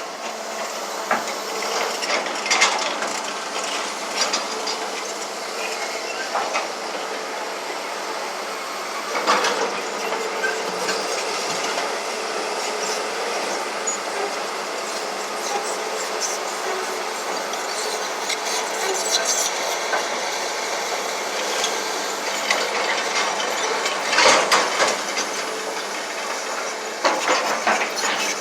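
Heavy earthmoving machinery at work: a steady engine drone under continual metallic clanking and rattling, with a few louder bursts of clatter along the way.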